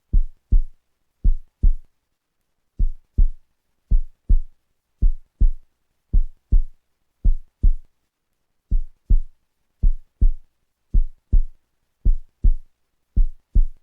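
Background music of paired low drum thumps like a heartbeat, roughly one pair a second, with silence between the pairs.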